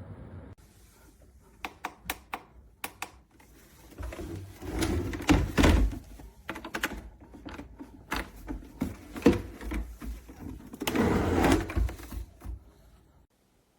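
A steady fan-like hum cuts off about half a second in. A few sharp clicks follow, then irregular rubbing, knocking and heavy thuds, like something being handled and set down, which stop shortly before the end.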